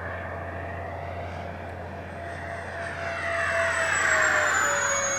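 Twin 70 mm electric ducted fan jet (XFly J65) flying past: its fan whine swells to a peak about four seconds in and drops in pitch as it goes by.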